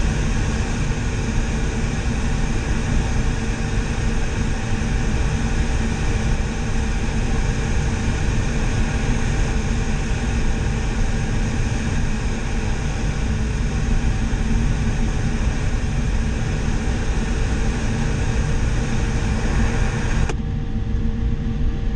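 Steady rush of air over a sailplane's canopy and fuselage in gliding flight, with a low rumble and a faint steady tone running through it. The upper hiss drops away about twenty seconds in.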